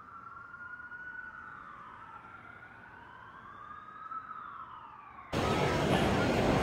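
Faint siren wailing, two overlapping tones slowly gliding up and down. About five seconds in it cuts off suddenly into loud, dense city street noise.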